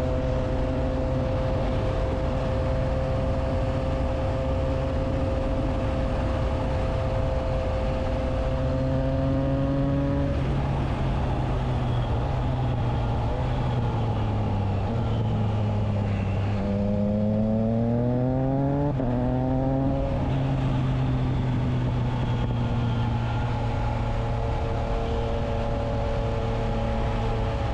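Triumph Trident 660 inline three-cylinder engine running through a Spark aftermarket exhaust with its dB killer fitted. It holds a steady note, then the pitch falls as the throttle closes about ten seconds in. The pitch rises again under acceleration and breaks at a gear change near two-thirds of the way through, then it settles back to a steady note.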